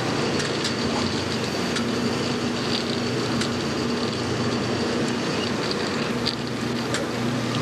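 Automatic PET bottle washing, filling and capping machine running: a steady mechanical hum and a faint high whine, with irregular sharp clicks.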